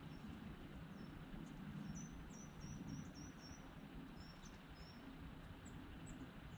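Small birds chirping faintly in short, high chirps that drop in pitch, with a quick run of them about two to three seconds in, over faint low background noise.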